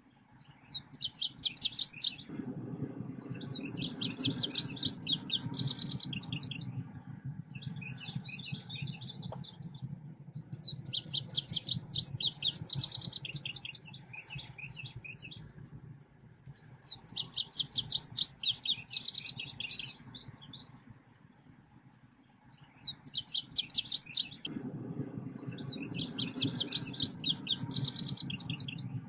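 Song of the selendang biru bird as used for a lure recording: repeated bursts of fast, high-pitched chirping trills, each lasting one to four seconds with short pauses between, over a low rumbling background.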